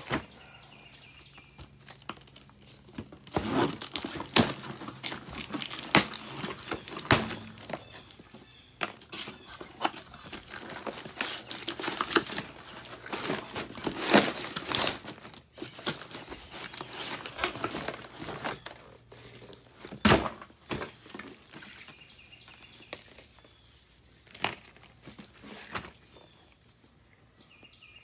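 A new furnace blower motor being unpacked from its cardboard box: irregular rustling, scraping and crinkling of cardboard and packing, with scattered knocks from handling. The sharpest knock comes about 20 seconds in, and the handling quietens near the end.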